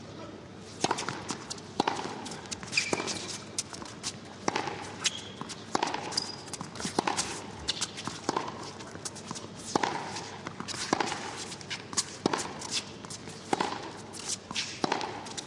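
Tennis rally: the ball is struck by rackets and bounces on the court, giving sharp pops about once a second, with a few brief squeaks typical of players' shoes on the court.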